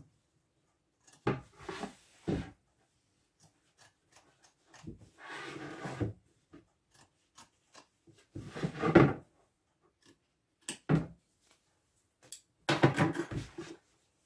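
Scissors cutting away excess appliqué fabric close to the stitching, with the denim rustling as it is handled: several short bursts of snipping and rustling with small clicks, separated by quiet pauses.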